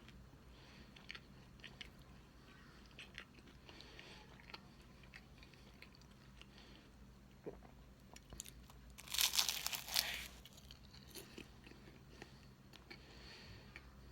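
Close-miked eating of cake: small wet mouth clicks and chewing, with one loud crackling crunch lasting about a second a little past the middle.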